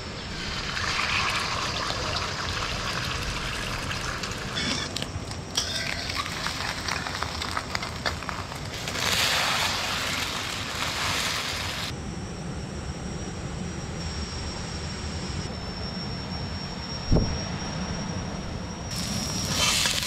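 Steady rushing of river water, its level and tone jumping abruptly several times. A thin steady high tone runs through the second half, and a single sharp knock comes near the end.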